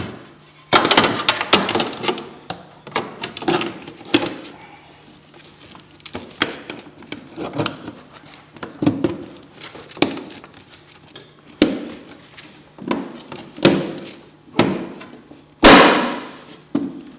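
Metal snowmobile clutch cover being fitted into place by hand: a string of irregular knocks and clatters as it bumps against the chassis and is pushed home. The loudest knocks come near the end.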